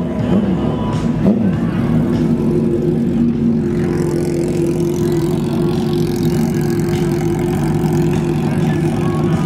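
Drag-prepared sport motorcycle engines revving, with the pitch rising and falling in the first second or two, then running at a steady held engine note.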